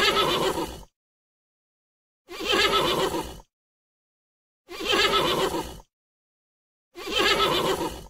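A horse neighing four times, each call about a second long, with dead silence between them.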